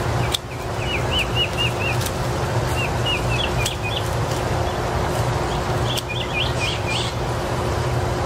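A small bird chirping in three quick runs of short high notes, with a few sharp clicks from hand pruners snipping rose canes, over a steady low rumble.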